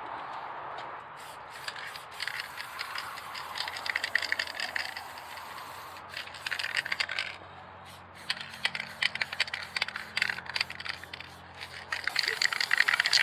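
Aerosol spray paint can being shaken in several bursts, its mixing ball rattling rapidly inside, after a short spray hiss at the start.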